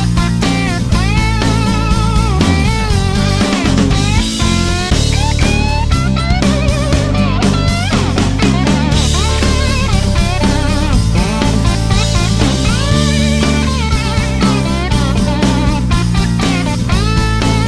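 Background rock music with electric guitar lead and drum kit.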